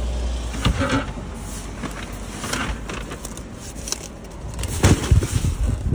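A polystyrene foam cooler box being gripped and lifted from a car's cargo area: foam rubbing and squeaking with a few knocks, the loudest just before the end, over a steady low rumble.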